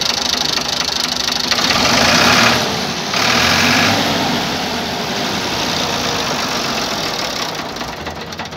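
1979 Ford 4600 tractor's three-cylinder diesel engine running, heard close up, swelling louder twice in the first few seconds and easing off near the end.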